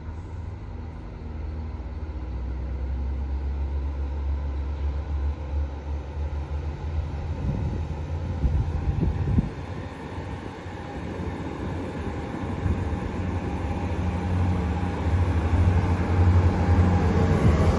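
Diesel multiple unit train pulling out of a station, its engines making a low, steady drone that grows louder over the last few seconds.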